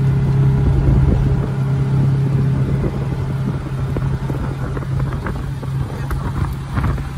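Side-by-side utility vehicle's engine running with a steady low drone as it drives over rough dirt, with rumble and rattle from the ride. The drone eases about six seconds in.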